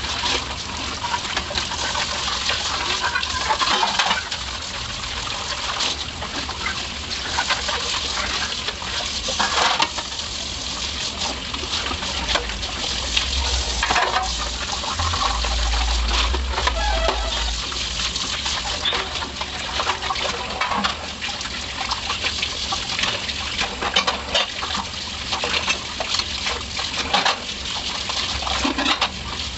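Tap water running and splashing onto stainless steel plates as they are rinsed by hand, with metallic clinks of the steel dishes knocking against each other now and then.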